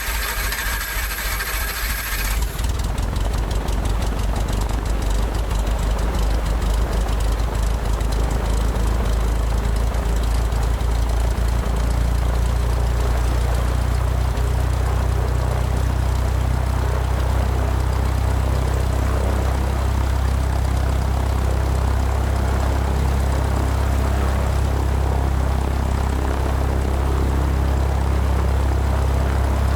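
Light propeller airplane's piston engine just after starting, with a high whine for the first two seconds or so, then running steadily with a loud, even low drone.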